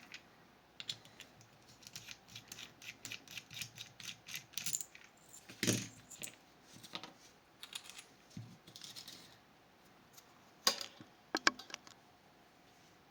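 Small metal parts of a Fichet 484 lever lock and its tools clicking and rattling as they are handled. A quick run of light clicks in the first half is followed by a louder knock about six seconds in and a few sharp clicks near the end.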